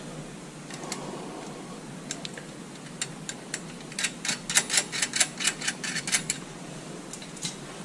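Light metallic clicks and clinks of flat washers and jam nuts being fitted and hand-spun onto the threaded ends of a steel U-bolt. The clicks come in a quick, irregular run during the middle few seconds.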